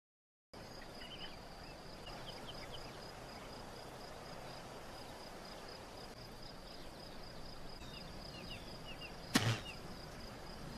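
Quiet countryside ambience: a steady, pulsing high insect trill with a few faint bird chirps over a soft outdoor hiss, and a single short thud about nine seconds in.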